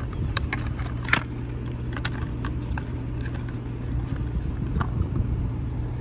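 Hands handling a round metal motor run capacitor and its cardboard box on a wooden deck, making a few light clicks and taps, the loudest about a second in, over a steady low hum.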